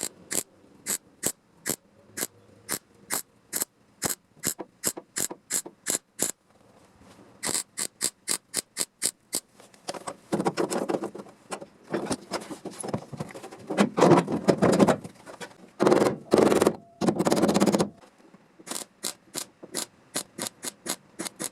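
Repeated hand-tool strokes on car-body metal, about two to three a second and quickening briefly, with longer scraping passes through the middle.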